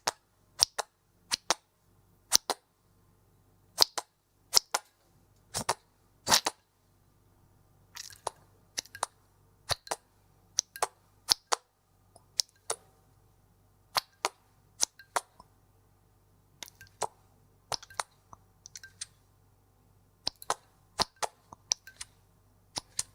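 Ketchup squeeze bottle being squeezed, giving a long series of short, sharp splats, often in quick pairs, with a few longer, ragged sputters.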